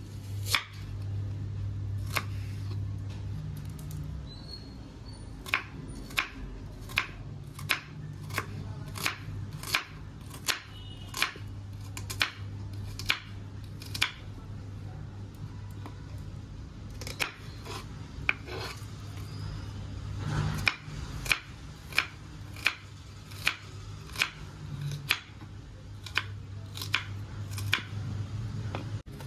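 Kitchen knife chopping a red onion on a wooden chopping board: sharp knocks of the blade against the board, about one to two a second, with a pause of a few seconds about halfway through. A steady low hum runs underneath.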